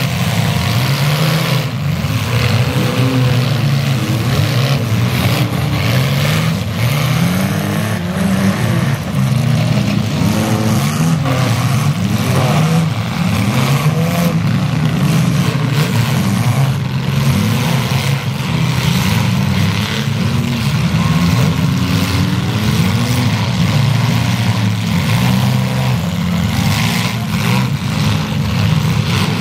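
Several compact demolition-derby cars' engines revving up and down together, with occasional short bangs of car-on-car collisions.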